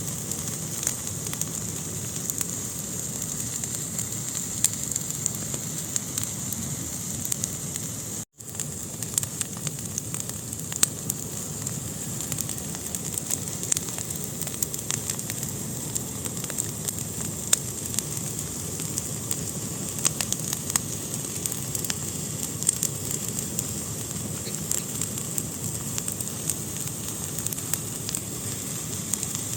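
Fire burning in a fireplace: a steady hiss with frequent sharp crackles and pops. The sound cuts out completely for an instant about eight seconds in.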